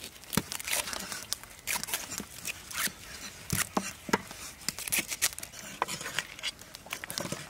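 Moringa leaves being stripped by hand from their stalks into a metal basin: an irregular run of crackling rustles and small snaps of tearing stems.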